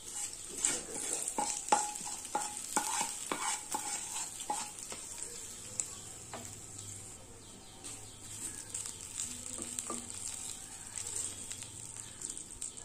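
Wooden spatula scraping a hot coconut-oil tempering of mustard seeds, curry leaves, red chilli and roasted coconut out of a non-stick pan into a pan of drumstick curry, then stirring it in, over a light sizzle. Repeated scrapes and knocks come thick in the first five seconds or so, then give way to quieter stirring.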